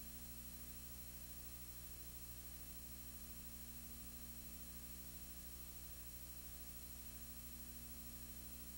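Faint, steady low hum with hiss: the noise of a blank stretch of old videotape playing after the recording has ended.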